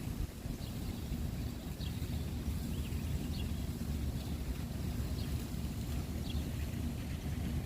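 Wind rumbling on the microphone, with faint short bird chirps about once a second.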